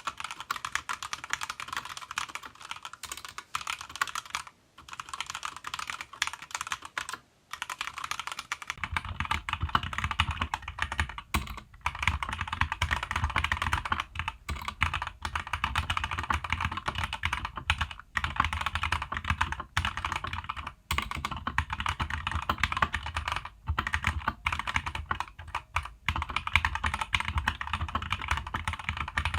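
Keychron K2 v2 mechanical keyboard with Gateron Red linear switches and double-shot ABS keycaps, typed on fast and continuously with a couple of brief pauses. About nine seconds in, the clatter turns deeper and fuller.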